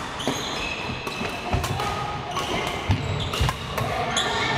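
Badminton rally: sharp racket strikes on the shuttlecock about once a second, with short high squeaks of court shoes and footsteps on the wooden hall floor, all echoing in the large hall.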